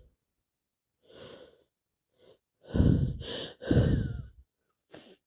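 A woman with a heavy head cold breathing and gasping. There is a soft breath about a second in, then two loud gasping breaths close together about three seconds in, and a short breath near the end.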